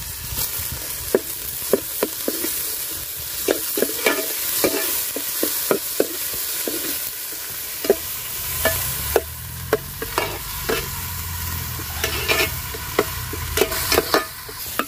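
Chopped shallots, garlic, ginger and green chillies sizzling in hot oil in a metal pot, with a metal spoon scraping and clinking against the pot in irregular strokes as they are stirred.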